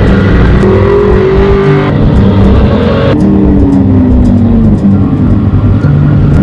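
Off-road race vehicle engines running hard, the pitch climbing gently over the first two seconds and then falling slowly about three seconds in, as the sound cuts abruptly between shots.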